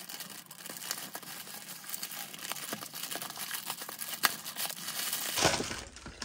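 Plastic mailer bag crinkling and crackling as it is handled and opened by hand, with many small sharp crackles; a louder rustle near the end as the air-cushioned package comes out of it.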